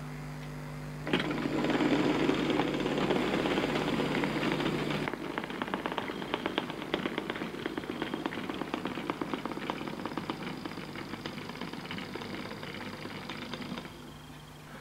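OO gauge model train running: the Hornby Class 35 Hymek's electric motor whirring as it pulls its wagons, with a fast clatter of wheels clicking over the rail joints. It starts suddenly about a second in and drops away shortly before the end.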